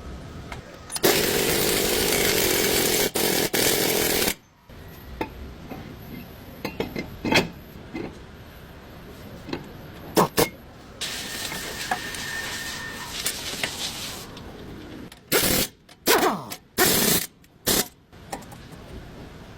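A power tool running in bursts: one loud run of about three seconds starting about a second in, a quieter longer run later, and four short loud bursts near the end, with sharp metallic clicks and clinks in between, during work on a front wheel bearing.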